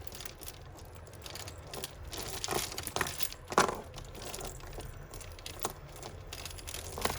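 Beads and costume jewellery clicking and rattling as tangled necklaces are handled, in scattered light knocks with the sharpest about three and a half seconds in.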